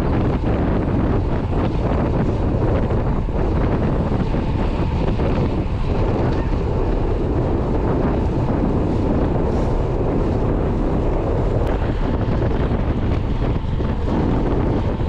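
Wind buffeting the microphone: a steady, loud low rumble of wind noise with no pauses.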